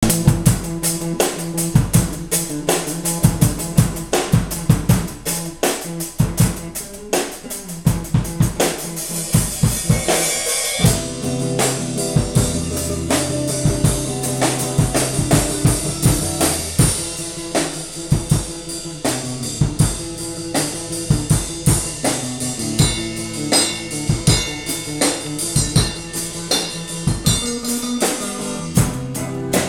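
A drum kit and an electric guitar playing together: a steady beat of kick drum, snare and cymbals under sustained guitar notes. About ten seconds in the playing gets fuller, with more cymbal wash.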